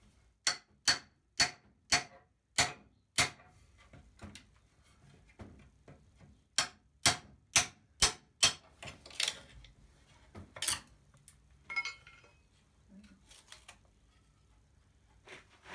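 Hammer blows on wood and steel, knocking an old window sill apart. There are two quick runs of five or six sharp blows, about two a second, then a few lighter knocks and a brief scrape.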